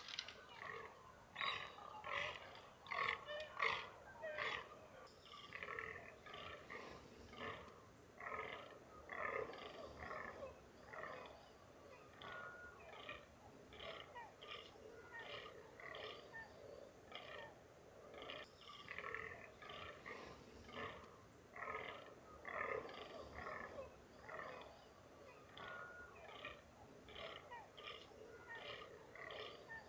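A herd of fallow deer mewing: many short calls overlapping, several a second.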